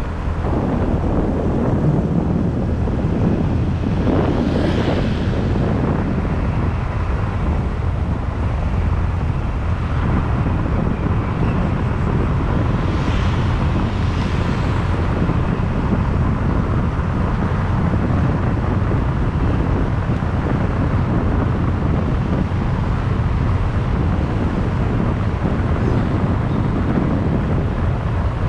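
Wind buffeting the microphone on a moving motorbike, a steady low rumble with the bike's engine and road noise underneath. Twice, about four seconds in and again around thirteen seconds in, a brief hissing swell rises over it.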